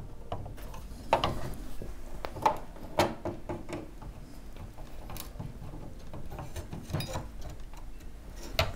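Irregular clicks and light scraping as a processor accelerator card is handled and fitted onto its screw posts inside a Power Mac G4 Quicksilver.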